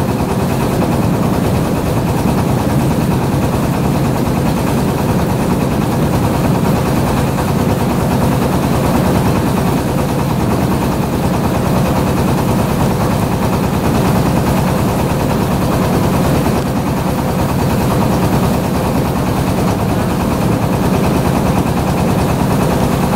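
Boat engine running steadily while the boat cruises, heard from on board: a loud, even drone.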